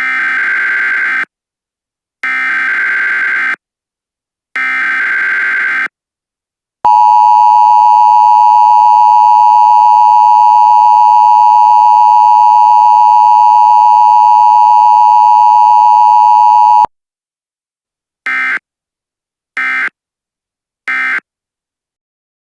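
Emergency Alert System tones: three digital header data bursts, each just over a second long, then the loud steady two-tone attention signal for about ten seconds, then three short end-of-message data bursts.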